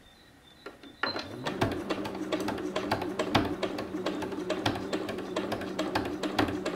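Background music with a percussive beat that starts abruptly about a second in, after a second of near silence.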